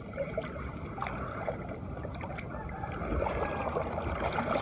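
Shallow sea water lapping and trickling at the shoreline, with a few faint clicks from the rod and reel being handled.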